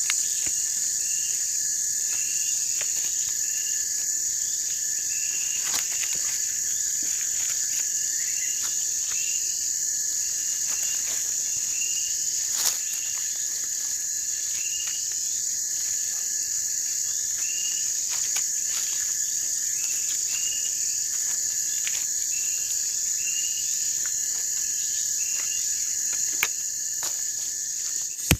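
A steady, high-pitched chorus of crickets and other insects, with a short chirp repeating about once a second and a few scattered light knocks, the clearest about halfway through.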